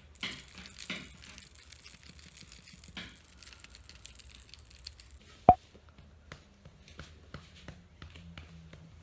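Soft rustling and handling noises with scattered small clicks, and one sharp knock about halfway through that is the loudest sound.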